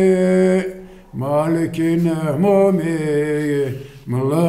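A man singing a mournful Pomak folk song (türkü) unaccompanied, with long held notes and ornamented bends in pitch, broken by two short pauses, about a second in and near the end.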